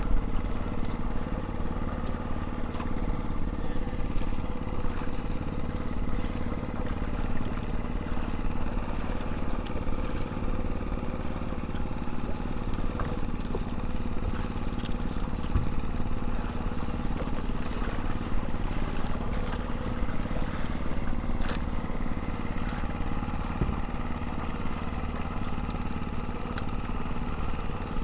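Small engine running steadily at one speed, with scattered light clicks and knocks over it.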